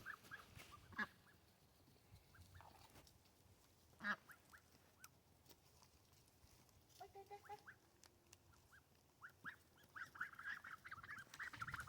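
Faint, scattered calls of farm fowl over near silence, with a short honk about seven seconds in and a quick run of short calls building near the end. Two faint knocks come about one and four seconds in.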